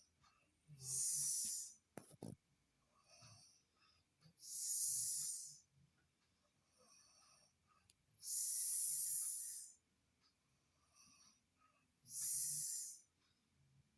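A sleeping person snoring: a loud hissing breath about every four seconds, four in all, with fainter breath sounds between them. There is a short knock about two seconds in.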